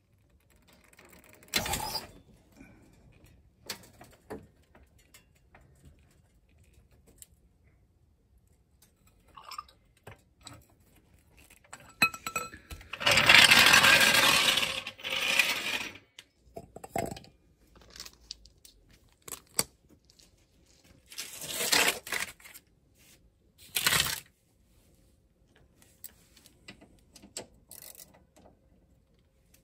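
Steel floor jack being worked on concrete: a short clank about two seconds in as it is let down, then a loud rattling roll of its wheels for about three seconds as it is pulled out from under the car. Later come a few more clattering knocks.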